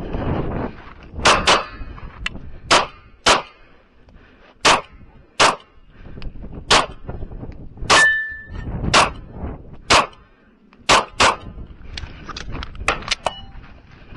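9mm FN FNS-9 pistol firing a string of about a dozen shots, singly and in quick pairs roughly a second apart. A brief ringing tone follows one shot about eight seconds in. Wind buffets the microphone.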